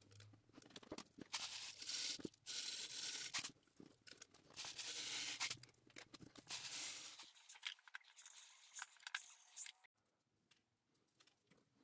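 A sheet of paper crinkling and scraping as it is pushed down into a square steel-tube canister, in noisy bursts through the first seven seconds or so. After that only a few faint clicks.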